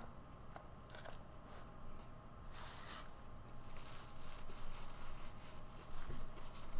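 Paper napkin rustling and crinkling as it is handled, with scattered small crackles and one longer, louder rustle about two and a half seconds in.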